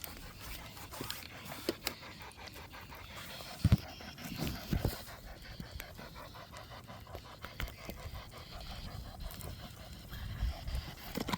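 SB7 spirit box sweeping the AM band: a rapid, even chopping of radio static, with a couple of louder knocks about four to five seconds in.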